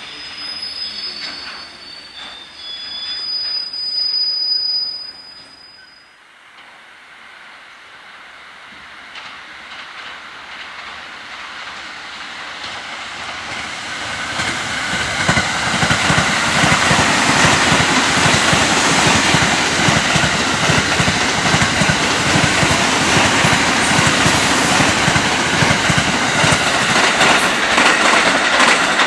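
The last of a freight train passing, with a high steady squeal at about three to five seconds. After a short lull, a 285-series Sunrise Seto/Izumo sleeper express approaches and passes at speed, its wheels clattering rapidly over the rail joints.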